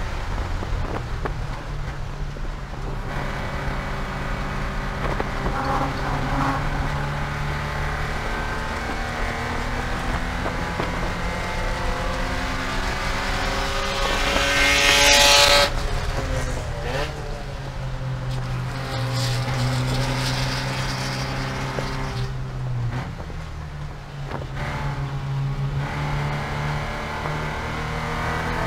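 Porsche 944 Spec race car's four-cylinder engine running hard at racing speed, heard onboard. Its pitch climbs and falls through the gears. A loud rushing noise peaks a little past halfway, then the pitch drops sharply twice, once just after the rush and again near the end.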